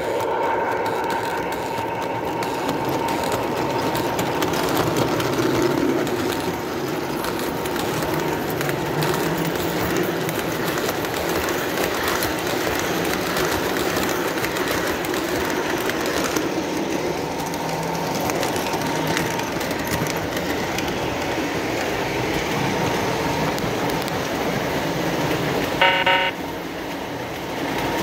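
Lionel O-gauge Santa Fe F3 diesel set pulling a lighted streamlined passenger train past on three-rail track: a steady rumble and clatter of wheels and motors on the rails. A short pitched tone comes about two seconds before the end, and the running is quieter after it.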